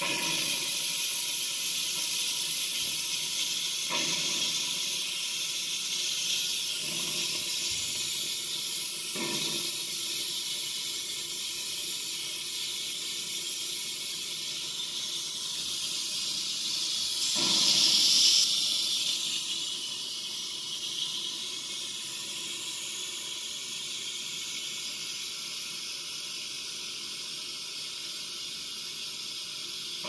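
Instant Pot pressure cooker venting steam through its quick-release valve into a PVC pipe that runs down into a glass vase: a steady high hiss. It slowly weakens as the pressure drops, with a brief swell a little past halfway.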